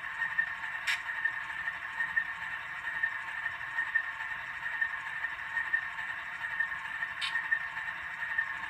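Sound decoders (Soundtraxx Tsunami) in HO scale GE Dash 9 model diesel locomotives play a diesel idle through their tiny onboard speakers. The idle is steady and thin, with almost no bass. Two brief high ticks come about a second in and near the end.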